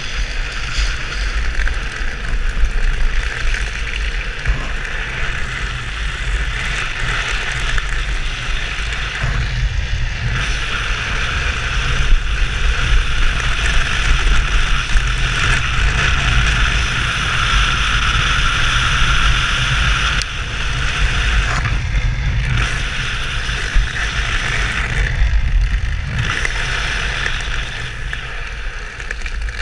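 Drift trike riding fast downhill, its PVC-sleeved rear wheels sliding on asphalt in a steady scraping rush that drops out briefly a few times, over wind rumble on the helmet-mounted microphone.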